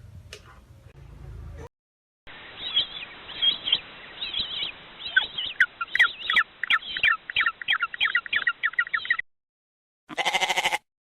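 A bird chirping over and over in quick high chirps, which come faster and closer together toward the end. About a second after the chirping stops there is a short pitched sound lasting under a second.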